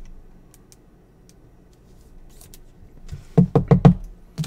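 Trading cards being handled on a table: a few faint light clicks, then a quick run of four dull knocks a little over three seconds in and one more near the end.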